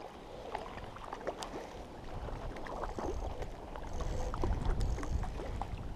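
Wind rumbling on the microphone, with light irregular splashes and small clicks of water as a hooked cutthroat trout is played in at the lake's edge.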